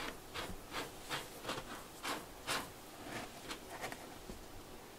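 A cat scratching and digging in fine cat litter with its paws: a run of short, raspy scratches, about two a second, that stop about four seconds in.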